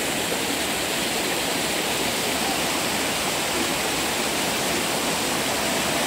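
Waterfall cascading down a rock face, a steady, even rush of falling water.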